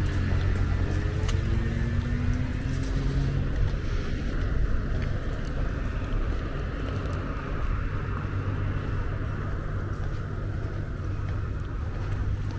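Motor traffic: a vehicle engine rising in pitch as it pulls away in the first few seconds, over a steady low hum and tyre noise.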